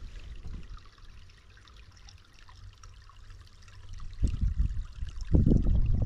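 Wind buffeting the microphone in low rumbling gusts, strongest in the last two seconds, over a steady rushing hiss of water.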